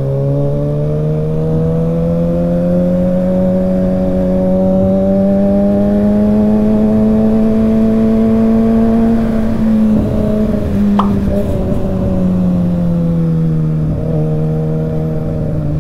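Kawasaki Ninja ZX-6R inline-four engine on the move, its note climbing slowly and steadily for about nine seconds. It then wavers and falls away as the throttle is eased, over a steady wind rush. A brief high tone sounds about eleven seconds in.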